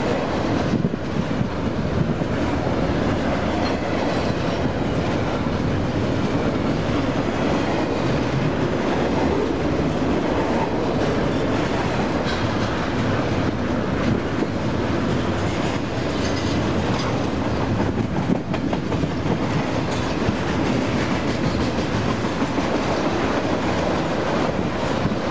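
Long Union Pacific freight train rolling steadily past, its wheels clicking over the rail joints in a continuous clatter.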